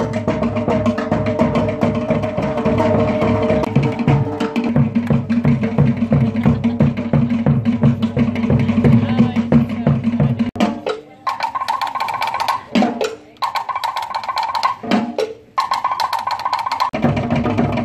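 Live Tahitian dance drumming: wooden slit drums and drums played together in a fast, steady beat. The sound breaks off and changes abruptly a few times in the second half.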